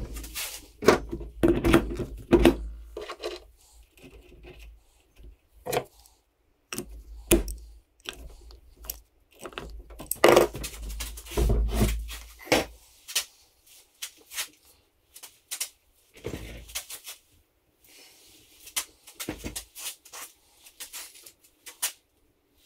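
Steel frame and loose hardware of a mower lift jack being handled and moved during assembly: irregular metal clanks, knocks and scrapes, with heavier thumps in the first few seconds and again about ten to twelve seconds in.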